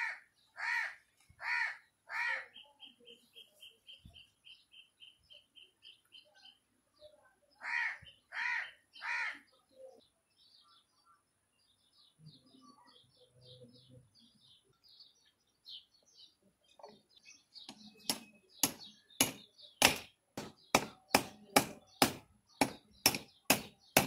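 A crow cawing, four harsh caws at the start and three more about eight seconds in. From about seventeen seconds on comes a steady run of sharp clicks, about three a second, louder than the caws.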